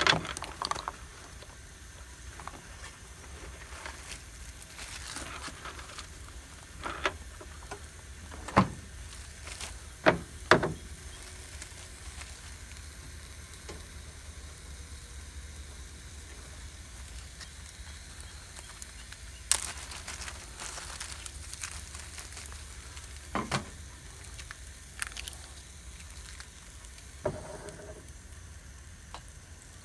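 Sausages sizzling steadily in a carbon steel skillet on a Coleman two-burner camp stove. Several short clicks and knocks of gear being handled break in now and then.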